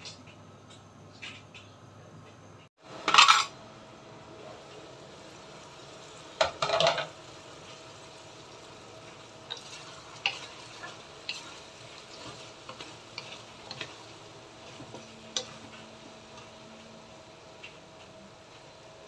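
Wooden spatula stirring chicken wings and potatoes in a simmering sauce in a non-stick pan, with small scrapes and taps against the pan. There is a loud clatter about three seconds in and another a few seconds later.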